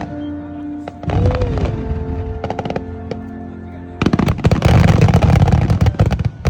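Fireworks exploding over music: a loud burst about a second in, then a dense crackling barrage of rapid pops from about four seconds in.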